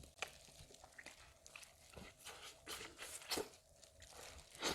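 Someone eating roast chicken: faint, scattered clicks, smacks and tearing sounds of chewing and pulling at the meat and skin, with a louder smack near the end.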